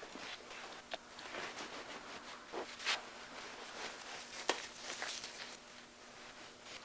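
Scattered light scrapes, clicks and knocks, like work or handling at a wooden workpiece, with a faint steady hum underneath.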